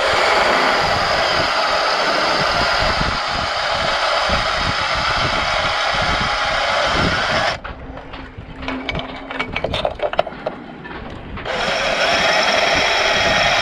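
Cordless drill boring a bolt hole through an outboard motor's lower casing. It runs steadily, stops about seven and a half seconds in for a few seconds of scattered clicks, then starts drilling again.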